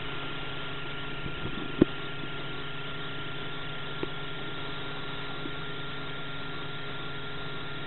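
A steady motor hum under an even hiss, with a few sharp clicks, the loudest about two seconds in and a fainter one about four seconds in.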